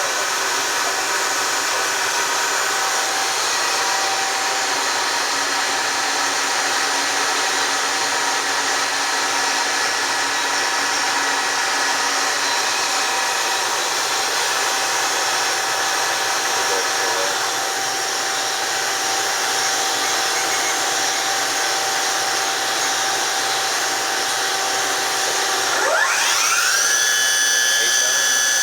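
Gear-head spindle of a Kitamura Mycenter 4 vertical machining center running at a steady speed, a whirring gear whine of several steady tones. Near the end it speeds up: the whine rises quickly in pitch and settles higher.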